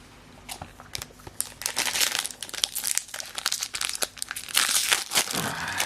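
Foil wrapper of a Pokémon TCG booster pack crinkling as it is handled and opened, a dense run of quick crackles that starts about half a second in.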